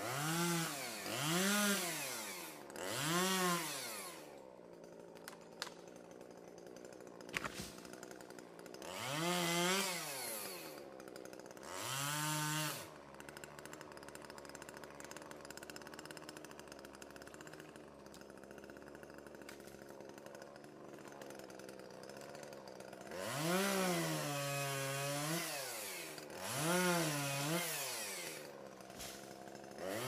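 Petrol chainsaw revving in about seven short bursts as it cuts small trees. Each burst rises and falls in pitch, and the saw drops back to a lower idle in between. There is a long stretch of idling in the middle, from about 13 to 23 seconds.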